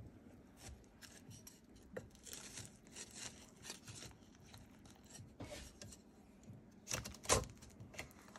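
Wooden spatula breaking through the flaky baked pie crust of a peach cobbler in a glass dish: faint crackling and rubbing, with a couple of louder short scrapes near the end.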